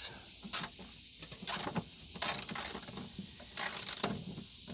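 Hand socket ratchet clicking in about four short bursts as it turns the nut on a riding mower's deck pulley.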